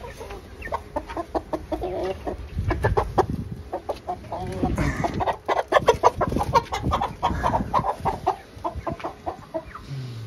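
Chickens clucking and squawking in rapid, dense calls while a young rooster is grabbed by hand, with low scuffling thumps of the catch underneath. The calls are loudest in the middle of the stretch.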